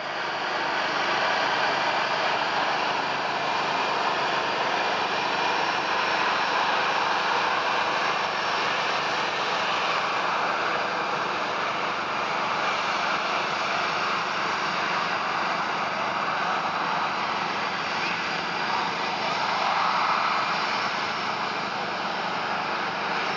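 Airbus A310-300's twin turbofan engines at takeoff thrust during the takeoff roll: a steady, even jet rush with a faint thin whine, holding at one level throughout.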